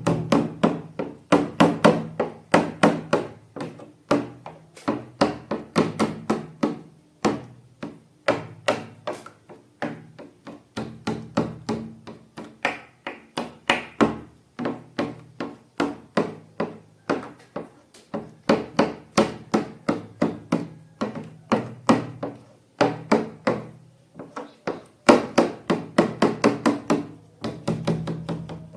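Background music of quick, knocking wooden-sounding notes, several a second, in a steady repeating pattern.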